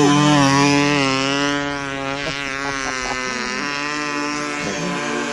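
Yamaha YZ250 two-stroke snow bike engine running at high revs, its pitch sagging a little over the first couple of seconds and then holding steady.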